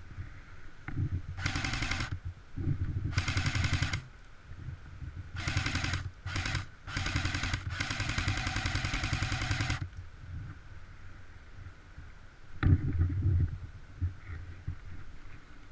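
Airsoft electric gun firing full-auto bursts in quick succession: six bursts, the last about two seconds long. A sharp knock follows near the end, with a low rumble of handling or wind on the microphone underneath.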